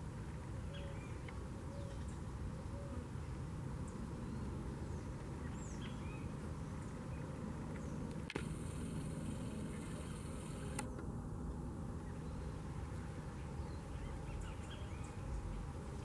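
A steady low outdoor rumble with faint, scattered bird chirps. About eight seconds in, a hiss starts with a click and stops with a click a couple of seconds later.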